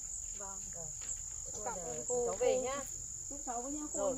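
A steady high insect trill, with people talking quietly under it in short stretches.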